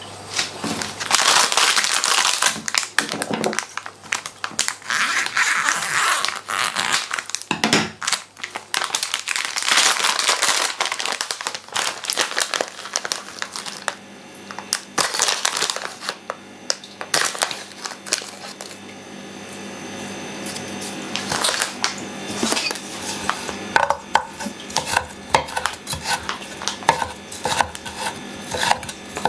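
A plastic bag of dried small fish crinkling loudly as it is opened and handled for several seconds. Later a kitchen knife chops the dried fish on a wooden cutting board in quick, rhythmic taps.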